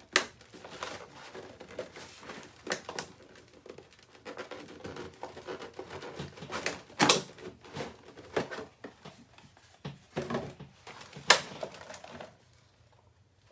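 Packaging being handled while rummaging through a clipper box: faint rustling with scattered sharp clicks and knocks as items are picked out.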